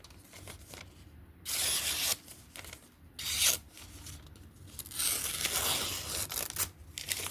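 Civivi Brigand pocketknife's D2 steel blade making three slicing cuts, each a dry hiss, the last about a second and a half long, as a cutting test of its freshly sharpened edge.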